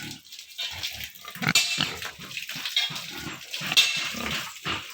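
Domestic pigs grunting, many short calls in quick succession, with two louder, higher-pitched cries.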